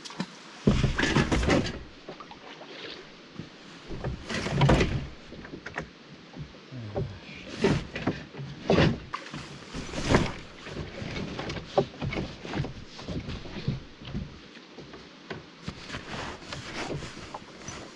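Canoe being paddled: irregular splashes and knocks of paddle strokes in the water, the loudest about a second in, near five seconds and near ten seconds.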